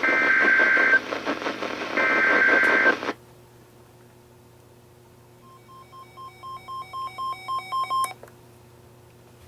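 NOAA Weather Radio EAS/SAME header: two one-second digital data bursts of rapidly warbling tones, the last of a three-burst set that opens a new alert, ending about three seconds in. After a short pause, a weather alert receiver's alarm beeps about four times a second, getting louder with each beep, then cuts off about eight seconds in.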